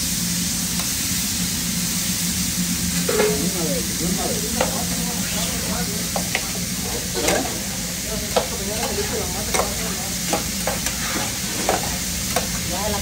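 Strips of steak sizzling on a hot flat-top griddle, a steady hiss. From about three seconds in, a metal spatula scrapes and taps on the steel again and again.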